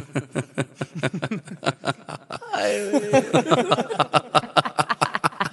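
Rapid, rhythmic chuckling laughter, a quick run of short falling 'heh' sounds, growing fuller about two and a half seconds in.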